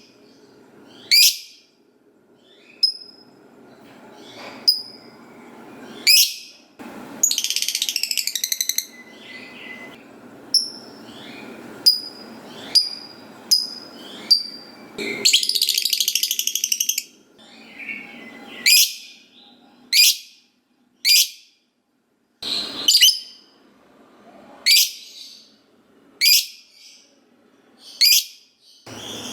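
Lovebird calling: sharp, shrill chirps every second or two, broken twice by a long rapid chattering trill (the 'ngekek'), about seven seconds in and again about fifteen seconds in.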